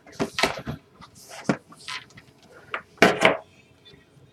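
Trading-card box being handled and opened: a series of short cardboard knocks, taps and scrapes, with a longer tearing scrape about three seconds in.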